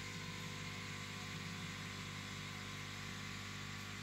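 Steady electrical hum with a hiss, from an aquarium pump running.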